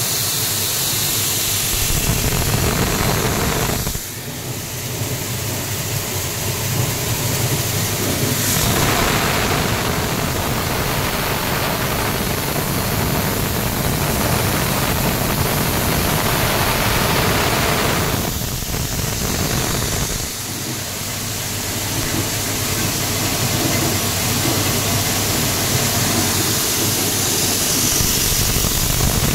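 Motor-driven grain cleaning machine running steadily, a constant machine noise with a hiss from its blower and sieves as grain runs through. It briefly drops quieter about four seconds in and again around eighteen to twenty seconds in.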